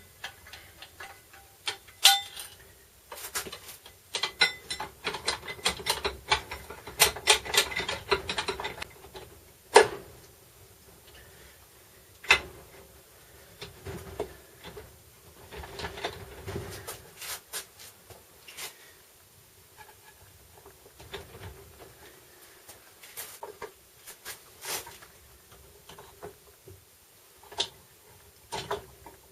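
Clicks, clinks and knocks of hand tools and metal parts being handled during work on a VW Touareg transfer case. A run of rapid clicking comes between about three and nine seconds in, with single louder knocks around two, ten and twelve seconds in, then scattered clicks.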